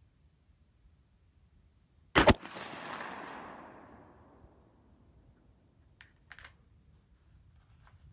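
A single 12-gauge slug shot from a Mossberg 930 semi-automatic shotgun about two seconds in: one sharp, very loud report followed by an echo that dies away over about two seconds. Two faint clicks follow about six seconds in.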